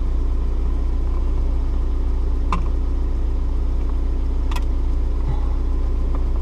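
A steady low drone, like a motor running, with two sharp clicks about two and a half and four and a half seconds in.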